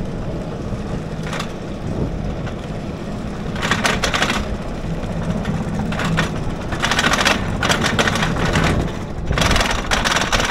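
Gerstlauer roller coaster's chain lift hauling the train up a 16-metre lift hill: a steady low mechanical rumble with clattering. Several louder stretches of noise come through, the longest near the end as the train nears the crest.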